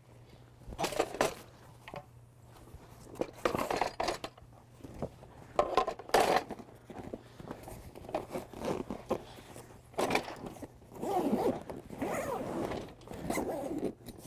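Zipper on a canoe's fabric packing bag being pulled in a series of short, irregular strokes, mixed with the rustle and scrape of the bag and its packed parts being handled.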